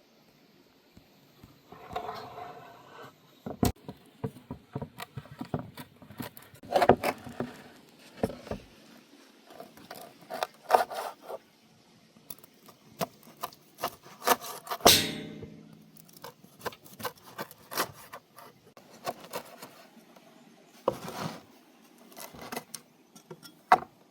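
Irregular rubbing and scraping with scattered sharp clicks and knocks, and one longer, louder scrape about fifteen seconds in.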